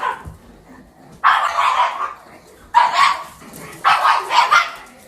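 A dog barking in four short bouts about a second apart, each a quick run of two or three barks.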